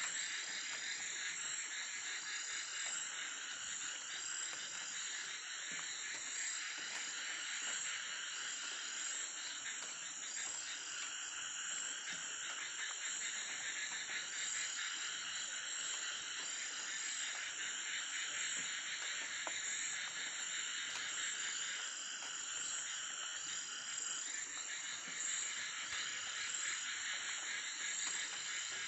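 Night chorus of frogs calling continuously, dense and steady, over a constant high-pitched tone, with one short call repeating about every second and a half.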